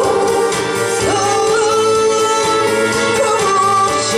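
A woman singing a Korean song into a microphone over a backing track, holding long notes.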